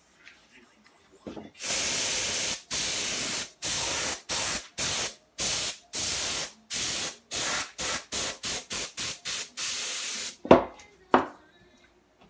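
Compressed air hissing from a handheld nozzle in about seventeen bursts, long at first and then shorter and quicker, blowing alcohol ink across a canvas. Two sharp knocks follow near the end.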